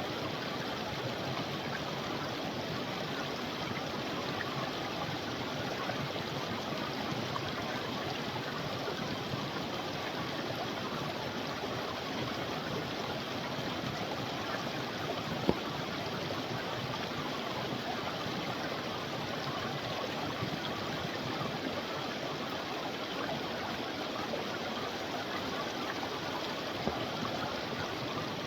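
Creek water running steadily, an even rush with no change, and one sharp click about halfway through.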